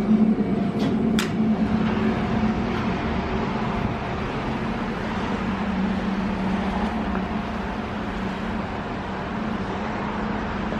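Steady vehicle noise, a continuous hum and rumble as of a car on the road, with a single sharp click about a second in.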